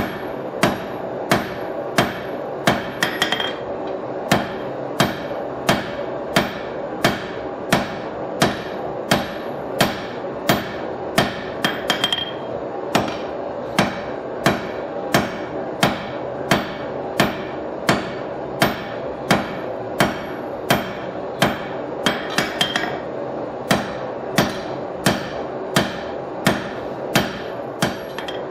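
Hand hammer striking red-hot steel on an anvil while forging a knife blade: an even rhythm of sharp, ringing blows, a little under two a second, with a few quick double taps, over a steady background hum.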